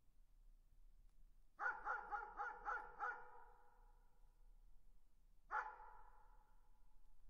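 A dog barking in the distance: a quick run of about six barks about a second and a half in, then one more bark a couple of seconds later, each trailing off in an echo.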